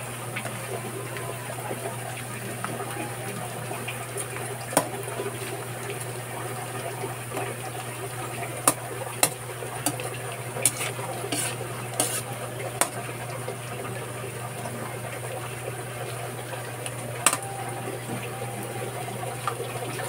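Metal spoon stirring and scraping in a metal wok, clinking against the pan now and then, most often in a run about halfway through, over the sizzle of onion, garlic and pork pieces frying in oil. A steady low hum runs underneath.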